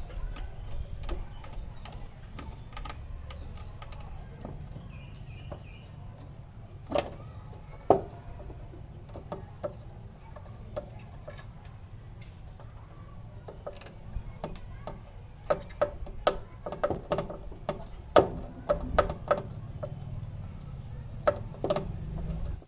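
Irregular sharp clicks and knocks, in scattered clusters, over a steady low hum.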